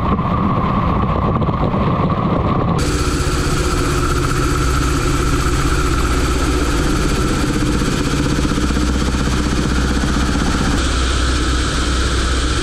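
Turbine engines and rotor of a Ka-52 attack helicopter in flight, heard through cameras fixed to the airframe: a loud, steady drone with engine tones. The sound shifts abruptly about 3 s in and again about 11 s in, and a louder rushing hiss comes in near the end.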